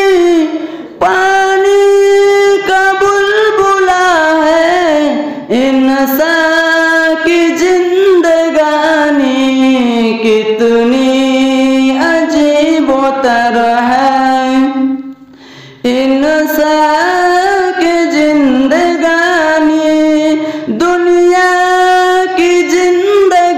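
A young man singing an Urdu naat solo and unaccompanied, holding long, high, ornamented notes that bend up and down. He breaks briefly for breath about a second in and again about two-thirds of the way through.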